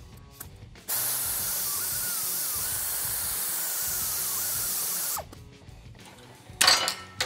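Air-powered grinder with a small abrasive disc running for about four seconds while cutting a steel chin spoiler bracket: a loud hiss with a wavering whine as the disc bites and the speed shifts. It stops suddenly, and near the end come a few sharp metal clinks.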